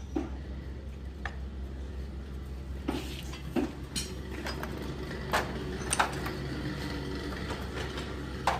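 Steel parts of a Hino FM1J truck manual gearbox clinking and knocking as gears, shafts and a bearing are handled and set down in a sheet-metal tray: a scatter of separate metallic clinks, the loudest around six seconds in and near the end, over a steady low hum.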